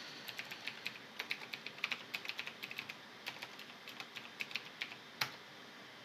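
Typing on a computer keyboard: a quick run of key clicks entering an address, with one louder single click a little after five seconds in.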